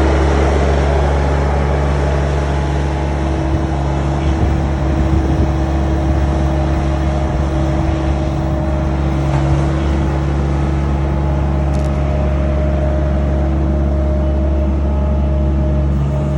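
Bobcat skid steer engine running steadily at constant speed.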